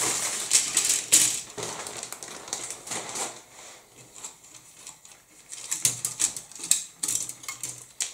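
Plastic model-kit sprues being handled: a rapid clatter of light plastic clicks and rustling, busiest in the first three seconds and again near the end.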